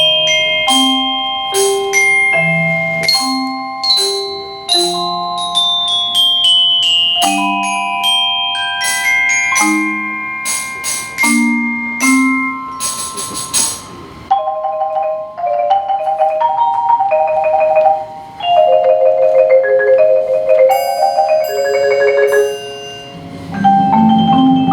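Percussion ensemble playing a melody on mallet instruments: ringing glockenspiel notes over marimba-type bass notes. About halfway a brief shimmering wash is heard, then quicker, lighter repeated mallet notes follow. Louder low notes come in near the end.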